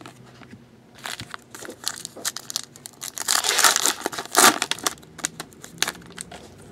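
Foil wrapper of a 2012-13 Select basketball card pack being torn open and crumpled: a flurry of crinkling and crackling, loudest from about three to four and a half seconds in, followed by quieter card handling.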